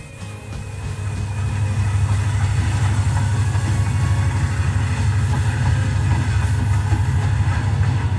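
HO scale model freight train running along the track, with a steady low diesel-engine rumble.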